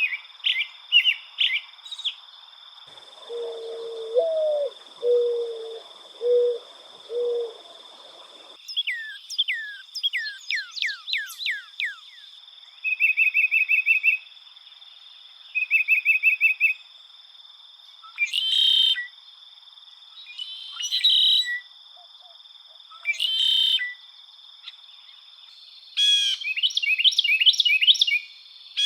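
Several different wild birds singing and calling in turn: short clear chirped phrases, then a mourning dove's low cooing song of five notes with the second note rising, then rapid down-slurred whistles, even trills and harsher notes. A steady high insect drone sits beneath.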